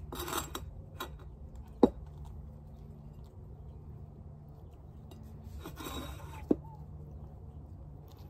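Tableware being handled at a meal: brief rustling and two sharp clinks, the louder one about two seconds in and another about six and a half seconds in, over a steady low hum.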